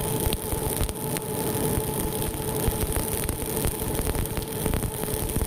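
Two-roll rubber mill running with silicone compound on its rollers: a steady machine hum with an uneven low rumble, and many scattered sharp crackles throughout.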